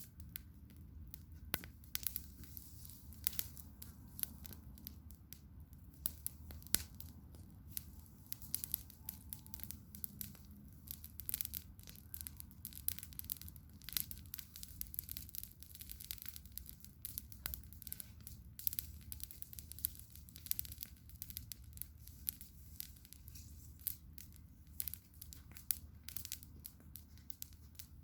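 Campfire burning, with wood crackling and popping in many irregular sharp snaps over a steady low rumble of the flames.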